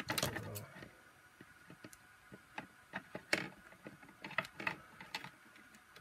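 Scattered light clicks and knocks of hand tools and plastic vacuum-nozzle parts handled on a wooden tabletop, as a pair of scissors is picked up and opened at the wiring.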